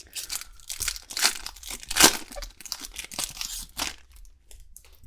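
Trading card pack wrapper being torn open and crinkled: a run of tearing and crackling strokes, loudest about two seconds in, dying down after about four seconds.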